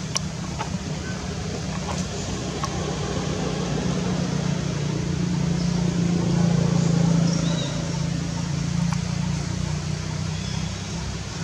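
Steady low engine drone, swelling to its loudest about six seconds in and then easing off, with a few faint clicks over it.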